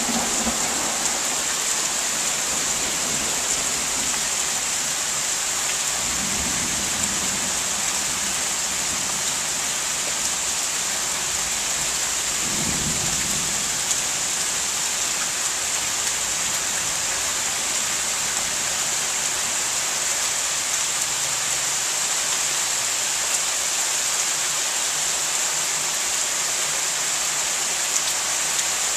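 Heavy thunderstorm rain pouring down in a steady hiss, with low rumbles of thunder about six and again about twelve seconds in.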